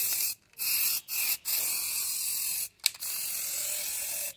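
Aerosol spray-paint can spraying in several hissing bursts, with short breaks between presses of the nozzle.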